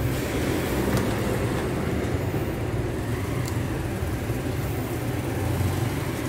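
Steady low mechanical rumble of background vehicle noise, with a couple of faint clicks about one and three and a half seconds in.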